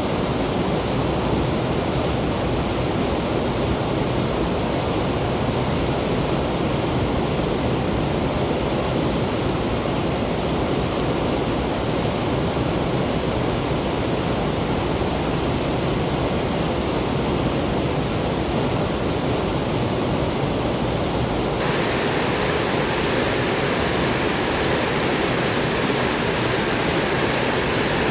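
Waterfall: a steady, unbroken rush of falling and running water. About three quarters of the way through, the hiss suddenly turns brighter and stays that way.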